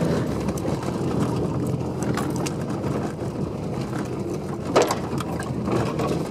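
Subaru driving over a rough forest dirt track: the engine running under load amid the rumble and small knocks of the body over bumps, with one sharp thump a little under five seconds in.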